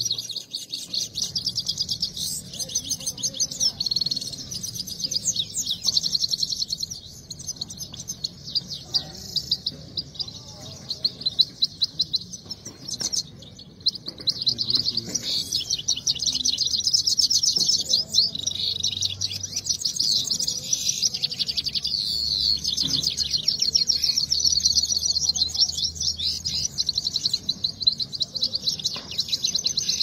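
Caged Himalayan goldfinch singing in a song contest: a fast, continuous high twittering song of rapid notes, with a brief pause about halfway through.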